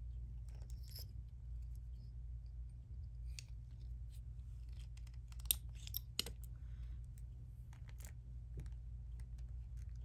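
Scattered small clicks and taps of glass and gemstone beads and a metal-pronged knotting tool being handled while a knot is worked on a beaded necklace cord, with two sharper clicks about halfway through, over a steady low hum.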